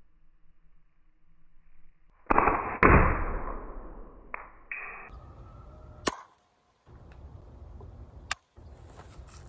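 BBs striking a styrofoam cooler: two loud sharp hits a little over two seconds in, each dying away over about a second, then a few smaller hits. A single sharp crack comes near the end.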